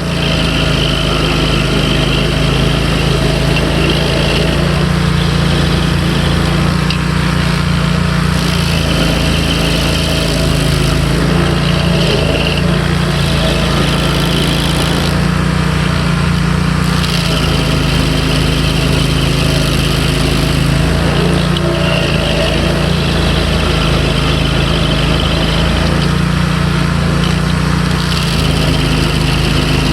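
Rayco RG37 stump grinder running at a steady high speed while its cutter wheel, fitted with Greenteeth 700 series teeth, grinds a stump. A higher-pitched grinding note comes and goes every few seconds over the steady engine drone.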